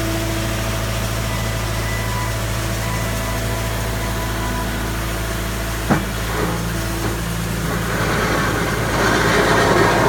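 Skid steer loader engine running steadily, with one sharp knock about six seconds in. The sound grows louder and rougher near the end.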